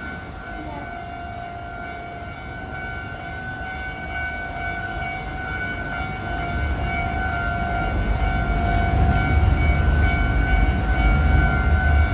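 Japanese level-crossing warning bell ringing steadily. The low rumble of a Hankyu Kyoto Line train grows from about halfway in and is loudest near the end.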